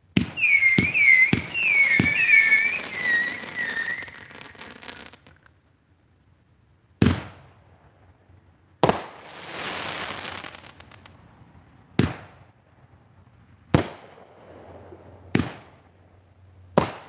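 A 500 gram consumer fireworks cake firing. It opens with four quick shots and several warbling whistles lasting about four seconds, then fires six single shots about every one and a half to two seconds. The second of those is followed by a couple of seconds of crackling.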